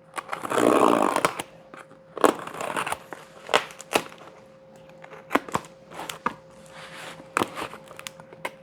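Shipping package being torn open and its packaging handled: a tearing rip near the start, then scattered rustling, crinkling and sharp clicks. A faint steady hum lies underneath.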